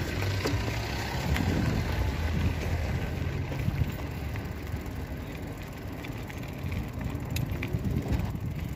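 Bicycle being ridden on a road, heard from the handlebar: steady rumble of tyres and frame with wind on the microphone, and a few sharp rattling clicks from the bike.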